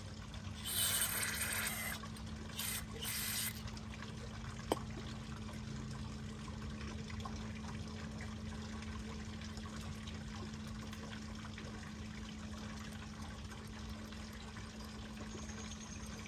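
Two short hisses of an aerosol carburetor cleaner spraying into the carburetor's passages, the first about a second long, the second a little shorter. A light click follows a second later, over a low steady hum.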